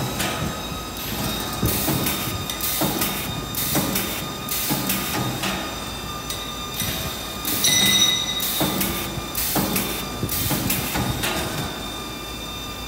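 A spiral wire fan guard making machine running. Short bursts come about one to two a second over a steady high whine, and a louder tone rings briefly about eight seconds in.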